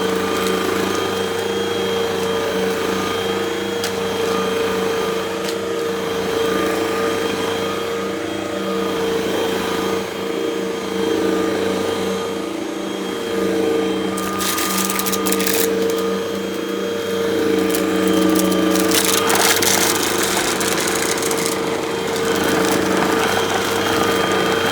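Vacuum cleaner running steadily with a constant motor hum, while crunchy debris crackles as it is sucked up. The crackling swells several times, most strongly in the second half.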